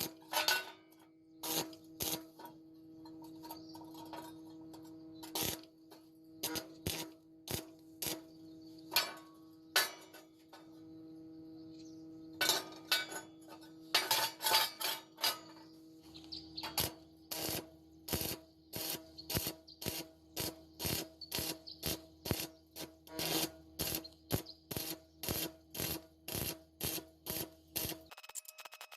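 Repeated sharp strokes of a hand tool on iron, irregular at first, then settling about halfway through into a steady run of roughly two to three a second. A steady low hum runs underneath and stops just before the end.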